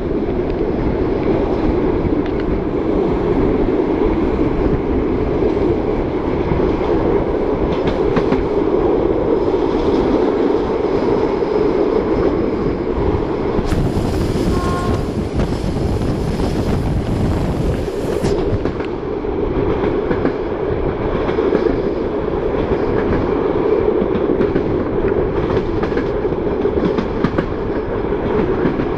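Passenger train running at speed behind an SU45 diesel locomotive, heard from an open coach window: a steady rumble of wheels on the rails with some rail-joint clatter. There are a few seconds of added hiss about halfway through.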